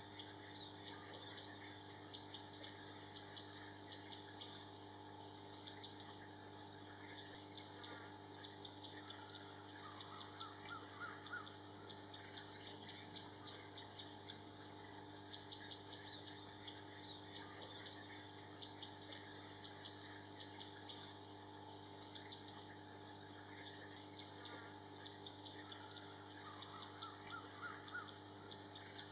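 A songbird calling with short, high, rising chirps repeated about once or twice a second, with a brief lower trill twice, over a steady background drone.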